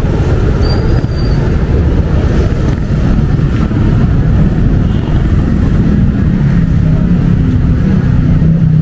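Loud, steady rumble of heavy city road traffic, with a low engine hum from a nearby vehicle building up in the last few seconds.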